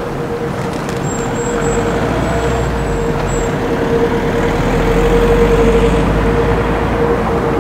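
Jet airliner on final approach to land, its engine noise growing steadily louder, with a steady droning tone over a wide rushing rumble.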